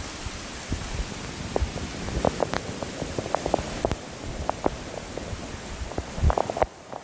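Muddy floodwater running off a road and pouring into a swimming pool, gurgling and splashing in irregular plops over a steady rushing hiss. The hiss drops away sharply near the end.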